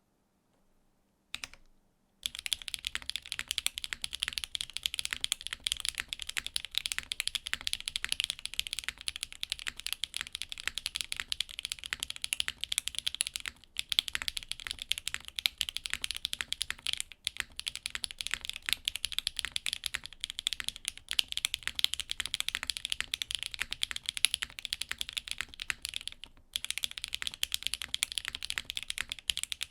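Continuous typing on a Vøid65 mechanical keyboard: Akko x HMX Cilantro tactile switches in a top-mounted nylon plate, polycarbonate case with copper bottom, GMK keycaps. A single keystroke comes first, then steady rapid typing from about two seconds in, with a few short pauses.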